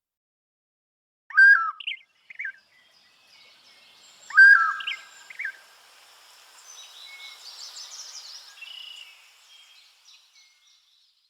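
Birdsong used as a phone sound: two loud groups of quick whistled chirps, about a second and about four seconds in, followed by a fainter chorus of many birds chirping that fades out near the end.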